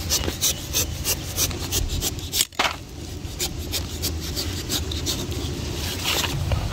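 Small knife slicing and scraping the thick skin off a white pumpkin (ash gourd) in a run of short rasping strokes, with a brief gap about two and a half seconds in, over a low steady rumble.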